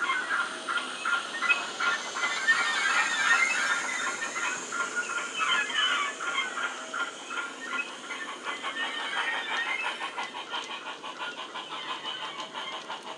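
Wheeltappers DCC sound decoder playing steam-locomotive chuffs and hiss through the small onboard speakers of two Bachmann USA tank model locomotives, with the rapid clicking of the model wagons' wheels on the track. The sound grows fainter as the train moves away.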